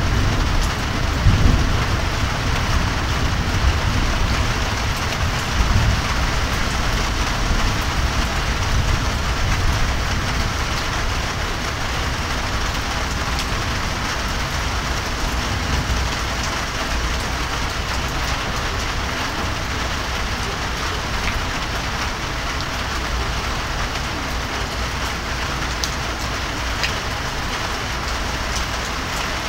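Steady rain falling, with a low thunder rumble dying away over the first ten seconds or so.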